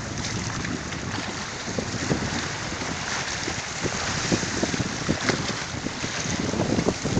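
Sea waves washing onto the shore, with wind buffeting the microphone in a steady rumble broken by short crackles.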